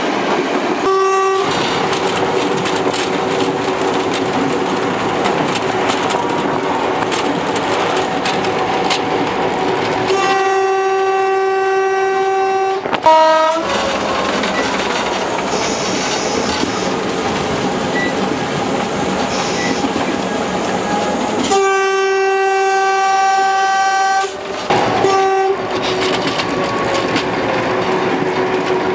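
Diesel locomotive horn blowing over the steady running noise of the locomotive and its wheels on the rails: a short toot near the start, then twice a long blast of a couple of seconds each followed by a short toot, about ten seconds apart.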